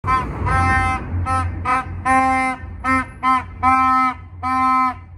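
Plastic vuvuzela-style stadium horn blown in a rhythm of short and long blasts, about nine in all, each on the same steady buzzing note.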